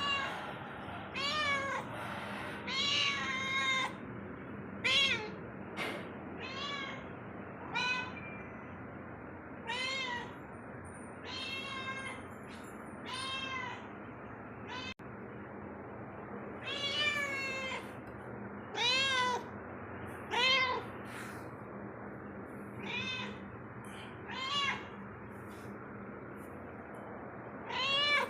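Domestic cat meowing over and over, a short call every one to two seconds, each meow rising and then falling in pitch.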